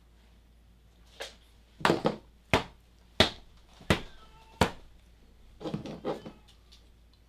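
A string of sharp knocks and thuds, about seven of them, irregularly spaced over some five seconds, with a faint short squeak in the middle.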